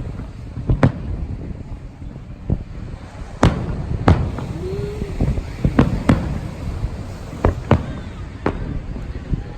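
Fireworks bursting overhead: about ten sharp bangs at irregular intervals, some in quick pairs, over a steady low rumble.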